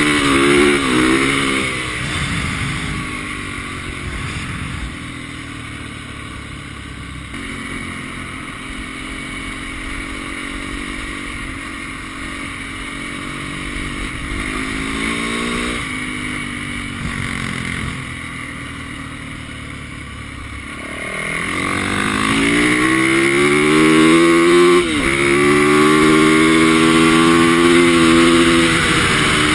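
Single-cylinder 450cc four-stroke dirt bike engine on ice, the revs rising and falling with the throttle. It runs quieter for much of the time, then revs up harder about two-thirds through, with a brief drop in pitch partway into that climb.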